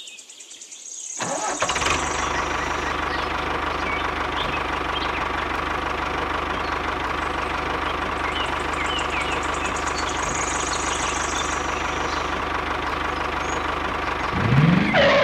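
A tractor engine starts up about a second in and runs steadily, with a short rising sound near the end.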